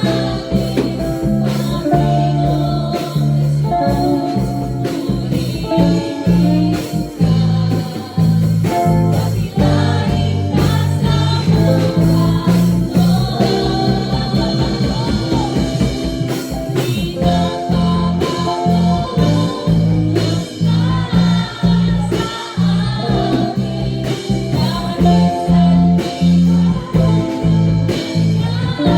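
Praise and worship song: singing over instrumental accompaniment with a steady bass line.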